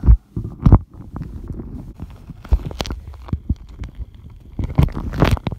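Slime being kneaded and pressed around a phone that is recording from inside it: muffled, irregular squelches, knocks and rubbing right on the phone's microphone over a low rumble, louder about five seconds in.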